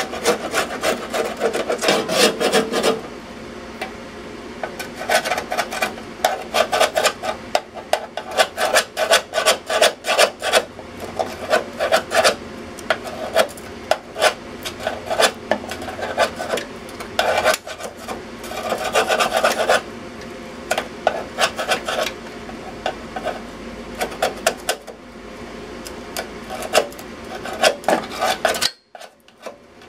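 Hand scraper scraping rust off the corroded top of a sheet-metal electrical box, in quick back-and-forth strokes. The strokes come in runs of a few seconds with brief pauses between them.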